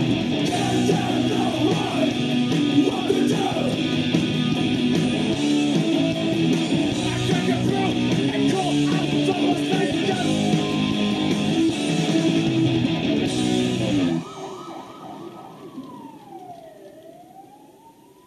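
A band's rehearsal tape: loud distorted electric guitars, bass and drums playing until about fourteen seconds in, when the song stops suddenly. A lone ringing tone is left, fading away while it slides down in pitch and back up.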